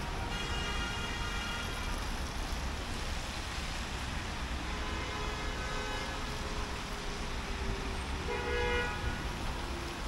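City street traffic running, with car horns sounding three times: near the start, around the middle, and a louder one near the end.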